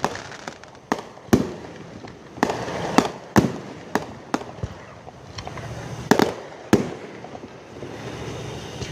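Fireworks show bursting in the air: about nine sharp bangs at uneven intervals, some in close pairs, with a low rumble between them.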